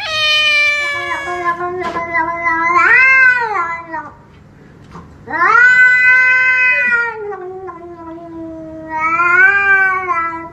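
Domestic cats meowing in long, drawn-out yowls, about three calls in all, each one rising and falling in pitch with short pauses between.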